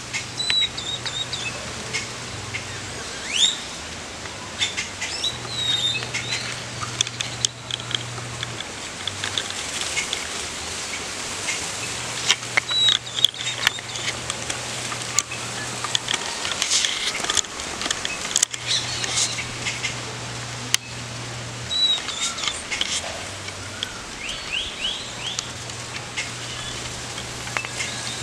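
Small songbirds calling in foliage: short high chirps and quick hooked whistled notes, irregular and scattered, with occasional sharp clicks.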